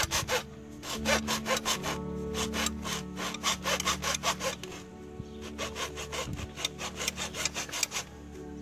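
Hand hacksaw cutting through black plastic irrigation pipe, quick back-and-forth strokes with a couple of short pauses, over background music.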